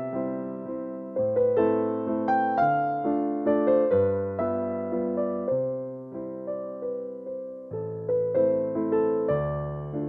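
Soft background music played on electric piano: a slow melody of single struck notes over held chords, each note fading away after it is struck.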